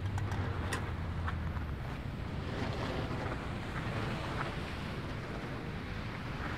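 Wind rushing over the microphones of a moving bicycle, with a low engine hum that fades out in the first two seconds.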